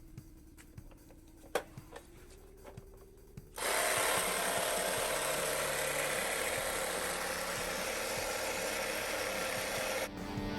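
Old 12-volt tyre compressor switching on about a third of the way in, running steadily with a loud buzzing hiss, then cutting off suddenly near the end. Faint background music before it starts.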